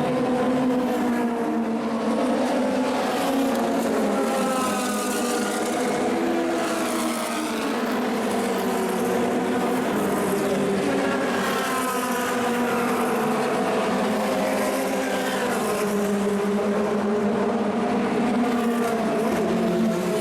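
Several 1960s Formula 2 and Formula 3 race car engines running hard, their pitch rising and falling with throttle and gear changes as the cars go by.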